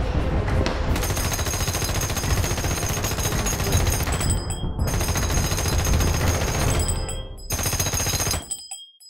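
Rapid automatic rifle fire in long bursts, with two short breaks, one near the middle and one about seven seconds in, before it stops shortly before the end.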